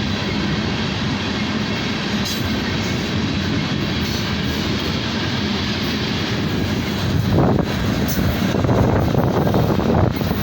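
Loaded coal train rolling past: a steady rumble of steel wheels on rail with a few sharp clicks, growing louder and rougher about seven seconds in.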